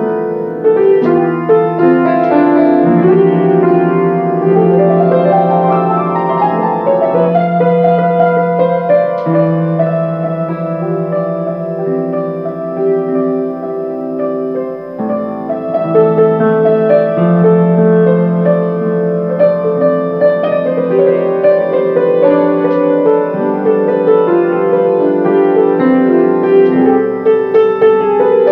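Solo piano playing a melody over held chords, easing off a little around the middle before growing fuller again.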